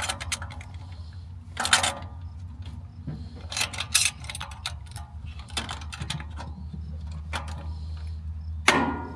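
Scattered metallic clicks and knocks as a lock collar is fitted and tightened by hand tool onto the vent on a center-pivot irrigation pipeline, the loudest knock near the end. A steady low hum runs underneath.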